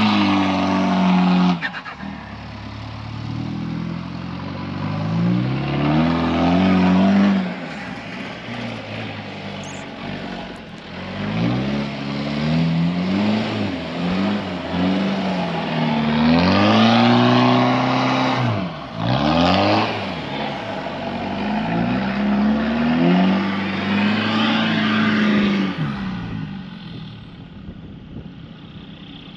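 A 2000 Holden TF Rodeo's 2.8-litre turbo diesel running through a freshly fitted twin 3-inch exhaust, revving up and easing off again and again as the ute is driven. The engine note fades away over the last few seconds.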